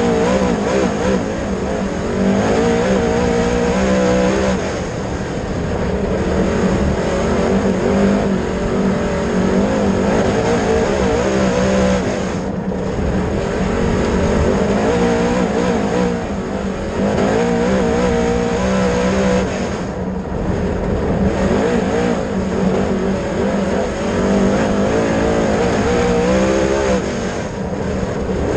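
Dirt late model race car's V8 engine at racing speed, its pitch climbing as it accelerates and dropping as it lifts, in a repeating cycle with a short dip about every seven or eight seconds.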